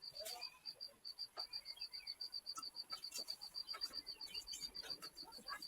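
An insect chirping in a fast, steady, high-pitched pulse, about ten pulses a second, with scattered faint clicks and short chirps.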